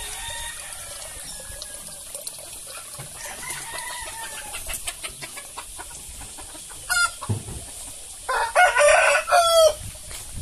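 Chickens clucking softly, then a short loud squawk and, about eight seconds in, a rooster crowing loudly for about a second and a half.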